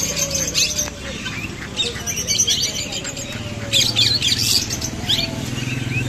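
Caged small parrots, budgerigars among them, chirping in quick overlapping clusters of short high calls over a steady low background hum.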